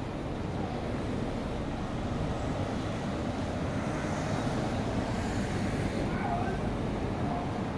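Street traffic: cars driving past close by at low speed, a steady rumble of engines and tyres that swells slightly about halfway through as a car passes.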